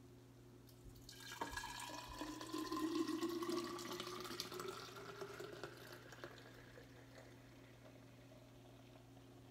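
Green juice poured in a stream from a juicer's jug into a glass jar, the pitch of the filling rising as the jar fills up. It starts about a second in, is loudest around three seconds, and thins out after about six seconds, over a faint steady hum.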